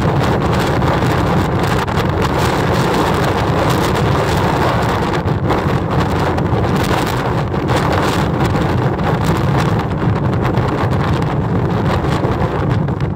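Storm wind buffeting the microphone: a loud, continuous rumbling rush, heaviest in the low end, with no let-up.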